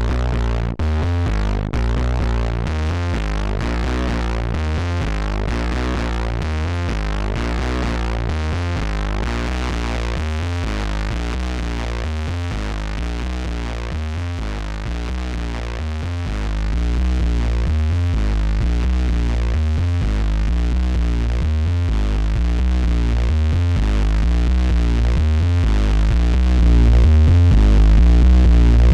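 Heavily distorted synth bass line playing a fast repeating sequence of low notes through a Gamechanger Audio Plasma Pedal, whose xenon-tube high-voltage discharges give the gritty overdrive. The level steps up about 16 seconds in and again near the end.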